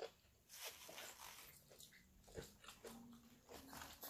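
Quiet eating sounds: soft chewing and mouth noises, with a light knock about two and a half seconds in.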